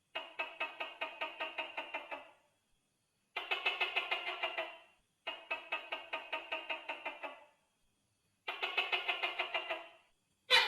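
Tokay gecko calling: four bouts of rapid, evenly spaced clucking notes, about seven a second and roughly two seconds each, with short pauses between them, then a loud sharp note starting near the end.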